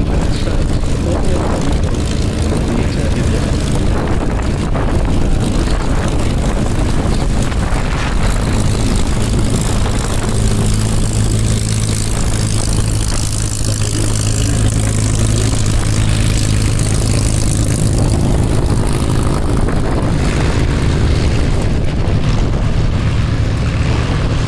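Piston-engined propeller warbird engine droning steadily in flight, its low drone swelling to its strongest in the middle as the aircraft passes.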